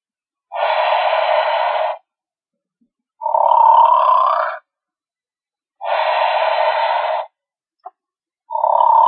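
Teddy-Hermann snoring plush bear's built-in sound module playing a recorded snore, repeating in a loop: four breaths of about a second and a half each, a noisy one alternating with one that rises in pitch, with dead silence between them.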